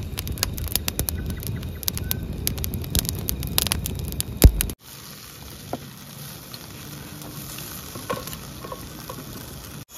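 Campfire of dry twigs and thin branches burning with dense, irregular crackling and popping, including one loud pop. Close to five seconds in, it cuts off abruptly, leaving a much quieter steady background with a few faint clicks.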